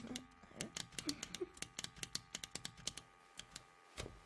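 Rapid, irregular clicking and ticking of a small clockwork mechanism, with a few short faint chirps in the first second and a half. The clicks thin out to single ticks after about three seconds.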